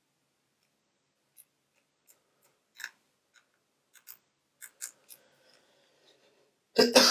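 Scattered light clicks and taps, like small parts and tools being handled during a phone screen repair, followed near the end by a loud cough.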